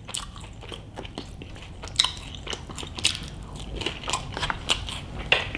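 A person chewing and biting food close to the microphone, with many small irregular mouth clicks and crunches.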